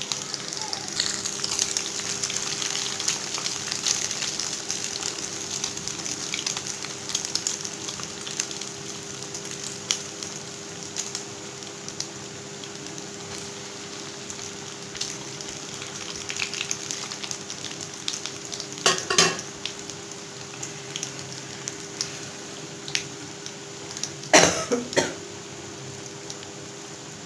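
Breadcrumb-coated bread rolls deep-frying in hot oil in an iron wok on high heat: a steady crackling sizzle, loudest in the first several seconds and easing off later. Twice in the second half a utensil clatters sharply against the pan.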